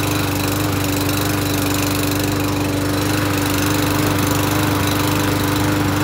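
Small single-cylinder engine of a walk-behind lawn mower running steadily at one even speed, kept going after a gas-assist start.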